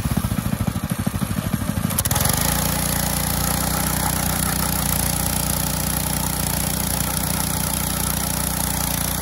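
Mini bike's small engine idling with a fast, uneven throb, then revving up about two seconds in and held at a steady higher speed.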